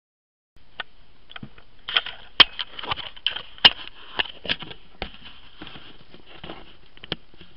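Handling noise on a small camera's microphone: irregular sharp clicks, knocks and rustling over a steady high hiss, starting about half a second in.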